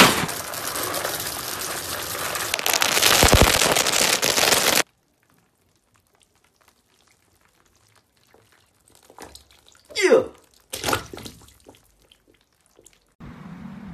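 Loud, dense rattling and crinkling of a cracker box being grabbed and shaken, cutting off abruptly about five seconds in. Then near silence, with a few faint swishes near the end.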